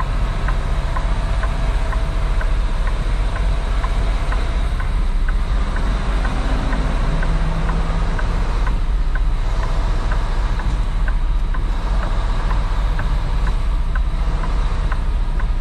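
Heavy truck's diesel engine heard from inside the cab, a steady low rumble as the 2023 Kenworth T680 creeps through a parking maneuver, with a faint, evenly spaced ticking over it.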